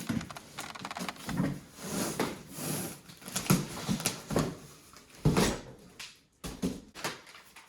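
Packaging being handled while unpacking flat-pack wooden furniture: irregular rustling and crinkling of cardboard and wrapping, with knocks of parts being moved.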